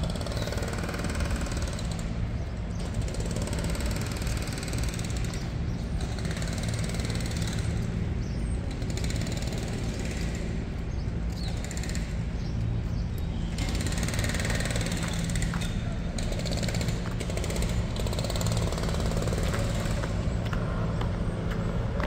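Street traffic: a steady low engine hum under an even wash of city noise.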